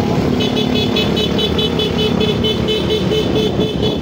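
Motor scooter engines running, with wind on the microphone. About half a second in, a rapid string of short, high beeps starts, about six a second.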